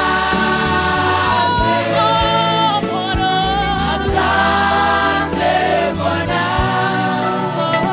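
Gospel music: a choir singing with vibrato over a bass line and a steady beat.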